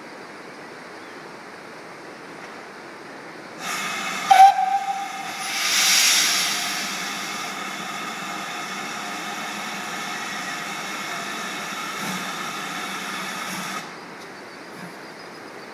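Steam whistle of GWR Large Prairie 2-6-2T tank engine 5199 sounding one long blast of about ten seconds. It starts a few seconds in, is loudest at first and cuts off suddenly near the end. About two seconds after it starts, a loud hiss of steam swells up from the engine's cylinder drain cocks as it moves off.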